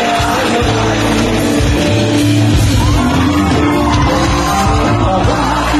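A rock band playing live through a PA, with a sung vocal and electric guitar over a steady bass line, loud and even throughout.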